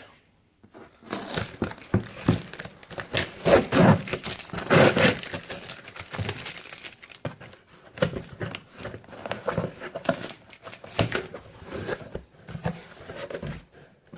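Packaging paper crinkling and rustling as a shoe box is unpacked, in irregular bursts that are loudest a few seconds in, with a brief tearing sound.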